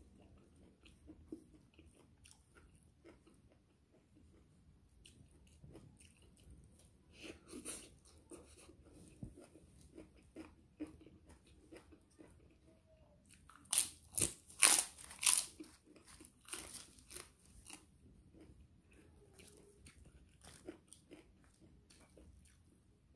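Close-miked eating: bites into crisp puffed crackers give a run of loud, sharp crunches about two-thirds of the way in. Quieter chewing and small clicks come before and after.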